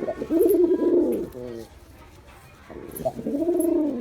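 Male Girabaj pigeon cooing: two coos, each rising and then falling in pitch, the first followed by a short clipped note, with a pause of about a second between them.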